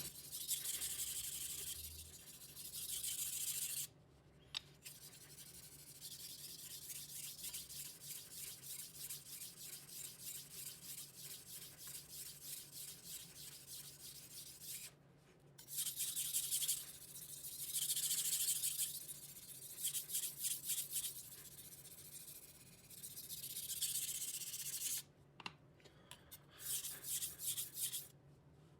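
Kitchen knife being sharpened on a wet 1000-grit splash-and-go whetstone: the steel blade scraping back and forth over the stone in runs of strokes, with brief pauses between runs. In the middle stretch the strokes come quick and even, about two or three a second.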